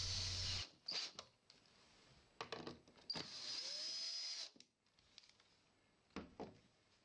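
Bosch drill-driver with a T30 Torx bit backing out an enclosure's bolts: its motor whine cuts off about half a second in. A few clicks follow, then a second run of about a second and a half starting around three seconds in, and a couple of faint clicks near the end.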